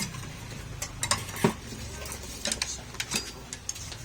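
Metal parts and tools clinking and tapping during hands-on work on power steering rack fittings: a handful of sharp, separate clicks over a low steady hum.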